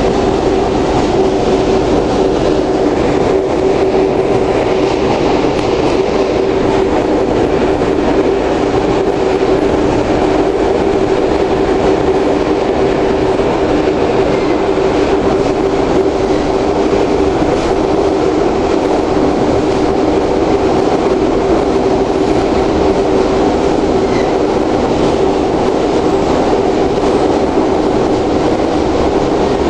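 Fertagus double-deck electric suburban train running at speed, heard from inside the passenger cabin: steady loud rumble of wheels on rail with a constant low hum, while crossing a steel truss bridge.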